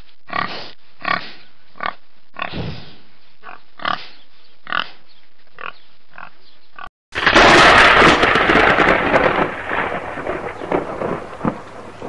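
A pig grunting, about ten short grunts over some seven seconds. Then, after a brief silence, a loud thunderclap breaks and rumbles on with crackling, slowly fading.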